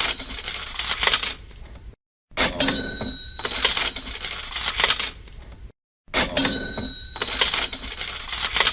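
Cash register sound effect on a loop: clicks, a bell ding and a burst of jingling coins that fades away, repeated about every four seconds with a short silent gap between repeats.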